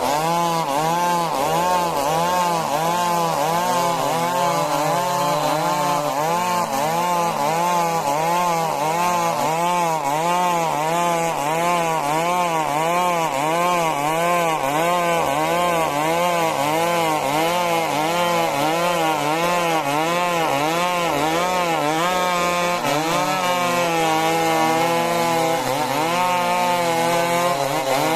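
Stihl MS 382 two-stroke chainsaw running under load as it cuts through a log, the engine pitch rising and falling in a steady rhythm, then holding steadier for the last few seconds.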